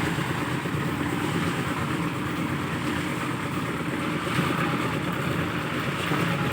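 A steady engine running with a constant hum and noise, without any clear change in speed.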